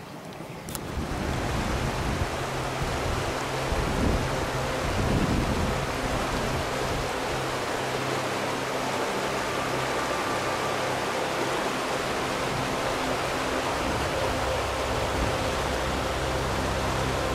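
Steady rush of fast-flowing water, such as a mountain river or a waterfall in a gorge. It comes in about a second in and holds evenly throughout.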